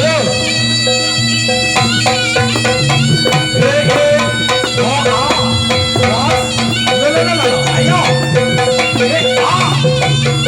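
Live Javanese barongan gamelan music: a reedy wind melody that bends and glides over steady drum and gong strokes.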